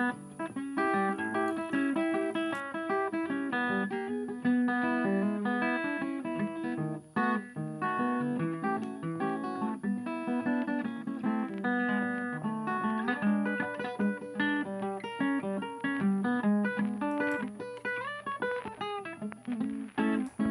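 Background music: a guitar playing a steady stream of quick plucked notes.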